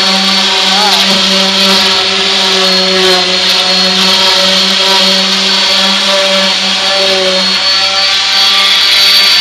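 Orbital palm sander running steadily under load as it sands, its motor whine holding a constant pitch with small wobbles now and then as the pad works the surface.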